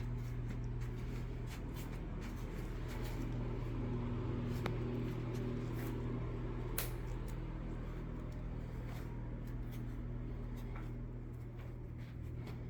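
Indoor room tone: a steady low hum with scattered faint clicks and taps.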